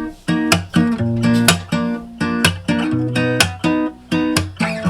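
Guitar music with rhythmic strummed chords, about two strums a second.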